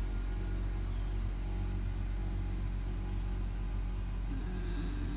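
Long-haired grey tabby cat purring steadily and low while its head is scratched.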